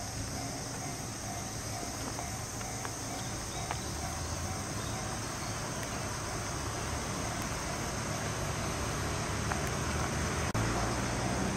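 Insects chirring steadily in the grass, with a faint, evenly pulsing tone beneath them. After a brief dropout about ten seconds in, a low rumble grows a little louder.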